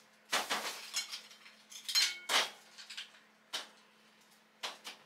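Dishes and utensils clinking and scraping: about six short, sharp clinks spread over a few seconds, a couple of them ringing briefly.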